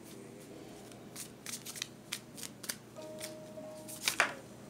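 A deck of tarot cards being shuffled by hand: a run of sharp card slaps and flutters, loudest about four seconds in.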